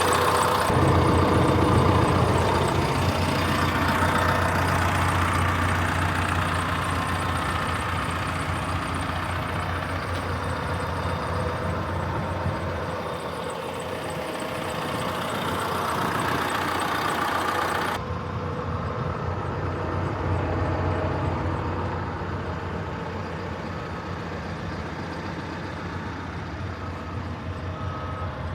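John Deere 410K backhoe loader's PowerTech 4045 four-cylinder diesel running steadily, its level rising and falling a little. The sound changes abruptly about two-thirds of the way through. Faint repeated beeps come in near the end.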